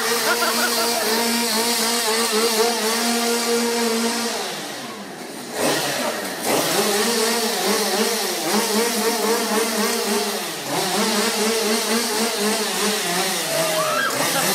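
A chainsaw engine running at high revs, falling away about four seconds in, revving back up a couple of seconds later, then wavering up and down with another brief dip near the middle.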